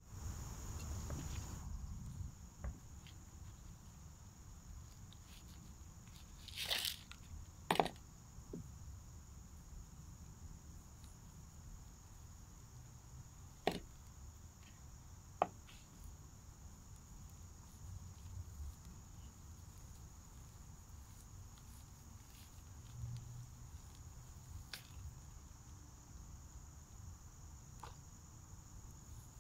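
Steady high insect chirring in the background, with occasional sharp clicks and short crackles as the pilea's root ball is worked out of its plastic nursery pot and broken apart by hand.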